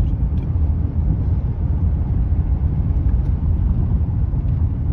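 Steady low rumble of a car on the move, heard from inside the cabin: tyre and engine noise while driving.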